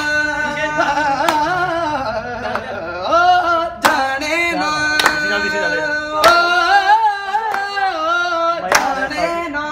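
A man singing a Punjabi song unaccompanied, drawing out long, ornamented held notes that waver and bend. A few sharp clicks fall between the phrases.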